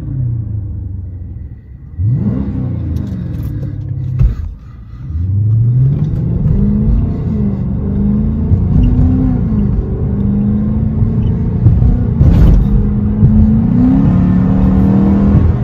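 Dodge Charger R/T's 5.7-litre HEMI V8 with its muffler deleted, heard from inside the cabin with the windows up: loud, with two quick revs, then a longer pull that climbs in pitch and holds there, wavering. There is one short sharp crack about twelve seconds in.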